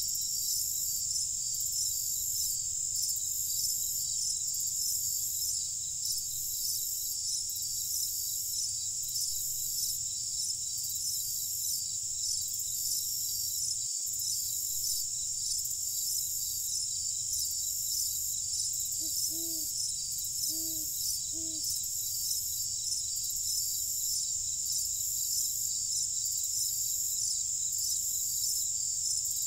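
Night chorus of crickets chirping densely and steadily with a regular pulse, over a low rumble. About two-thirds of the way through comes a short run of four brief low calls from another animal.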